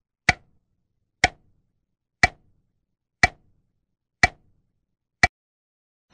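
Clock ticking: six sharp ticks, evenly spaced one a second.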